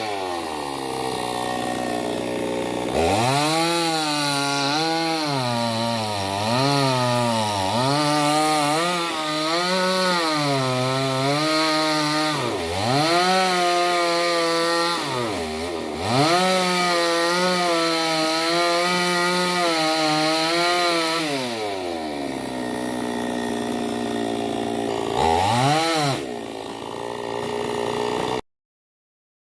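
Chainsaw cutting wood, its engine pitch rising and falling over and over as the revs drop under load and pick up again. Near the end it settles to a lower, steadier running, revs up once more briefly, then stops suddenly.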